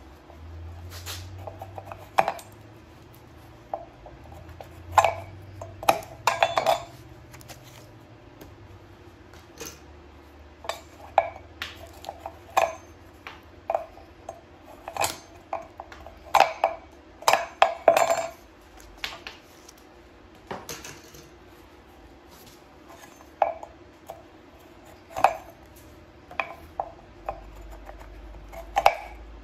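Irregular metallic clinks and clatter as thin metal rods and a steel kitchen knife are handled and struck on a wooden block over an anvil; some strikes ring briefly.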